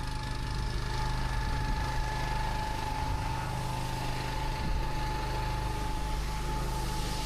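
Pressure washer's engine running steadily, with a steady high whine over it.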